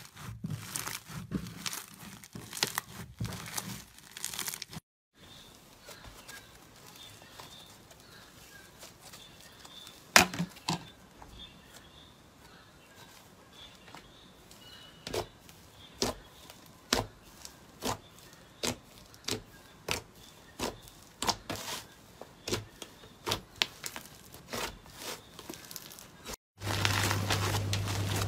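Hands squeezing and kneading foam-bead slime (floam): a dense crunching and crinkling of the beads. After a cut it goes much quieter, with scattered sharp pops and clicks as fingers press into a mound of smooth slime, coming more often in the second half; near the end a louder crackling starts, over a low hum.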